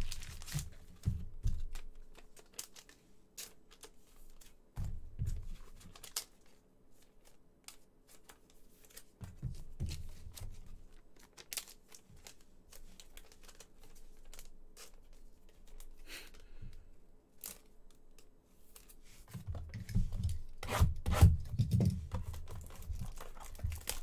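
Football trading-card pack wrappers being torn open and crinkled, with cards slid and shuffled between, making scattered crackles. Heavier rustling with low bumps comes a few times, loudest near the end as a pack is handled close to the microphone.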